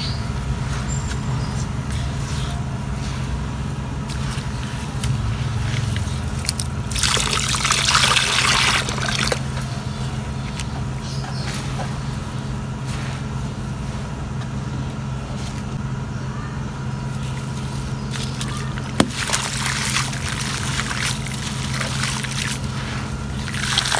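Handfuls of dry, gritty grey sand are crumbled and dropped into a small pool of water, giving trickling, pouring and sloshing sounds. They come in bursts: one about seven to nine seconds in, and more from about nineteen seconds on and near the end. A steady low hum runs underneath.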